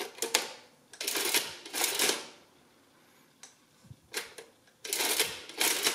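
Olivetti Summa 15 mechanical adding machine being worked: a few number-key clicks, then the hand lever pulled and let back with two long mechanical rasps as the mechanism cycles and prints. A few clicks come just after four seconds in, then another two-stroke lever cycle near the end.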